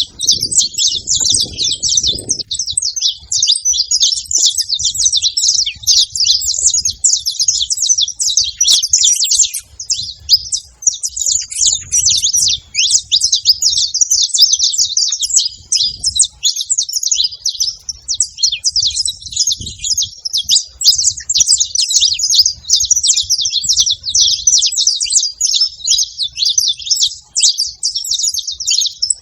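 Several saffron finches singing and chirping together in a dense, continuous high-pitched chatter.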